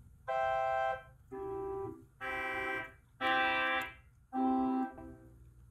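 Pipe organ sounding five short held notes one after another, separated by brief gaps, each in a different tone colour as different stops are pulled out to show how the stops change the sound.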